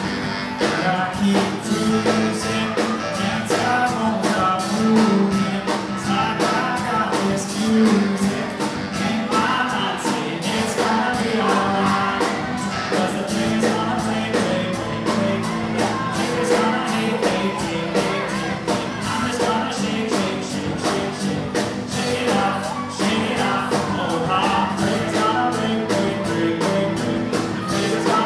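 Live band playing a rock song on acoustic guitar, keyboard and drum kit, with a steady drum beat.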